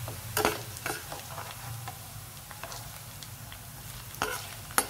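Gram-flour sev frying in hot oil in a steel pan, a steady sizzle, with a perforated steel skimmer stirring the strands and clacking against the pan several times, the loudest just before the end.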